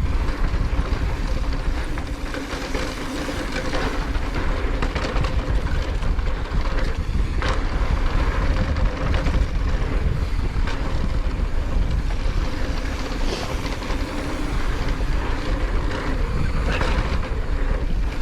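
Wind buffeting the camera microphone and knobby tyres on a dirt trail as a mountain bike descends at speed, with occasional sharp knocks and rattles from the bike over bumps.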